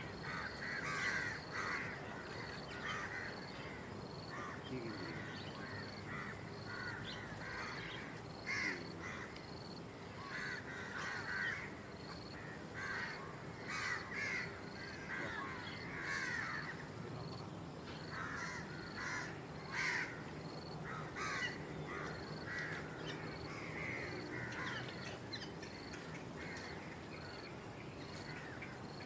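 Birds calling again and again in short irregular calls, over a steady high-pitched insect drone and a faster, regular chirping.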